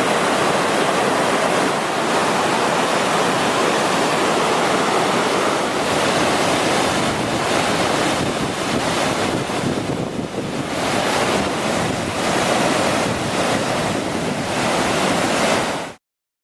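Typhoon-swollen, muddy Kamo River rushing in flood: a loud, steady wash of churning water, with wind buffeting the microphone. It cuts off suddenly near the end.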